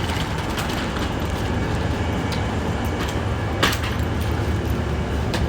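Steady low rumble of a train standing at the platform, with a sharp click about three and a half seconds in and another near the end.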